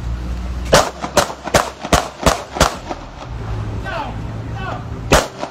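Seven gunshots fired by police: six in quick succession, about two and a half a second, then a seventh about two and a half seconds later.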